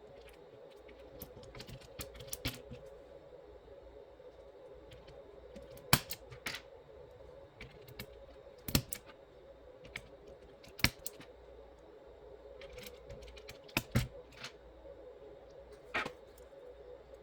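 Scattered sharp clicks and snaps from an aigo A108 mechanical keyboard being worked on during a swap to Outemu Peach switches. The clicks come irregularly, often a second or more apart, over a steady hum.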